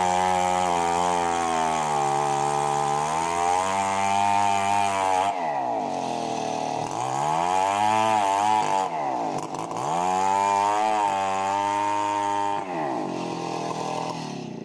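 Stihl 070 two-stroke chainsaw ripping a log lengthwise, held at high revs under load. About five seconds in, the revs start rising and falling as the cut is worked, then steady again. Near the end the engine drops to lower revs.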